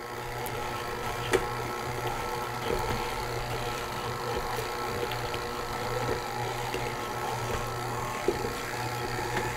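Electric stand mixer running steadily on low, its paddle working ground pork and seasonings into sausage, with a single sharp click a little over a second in.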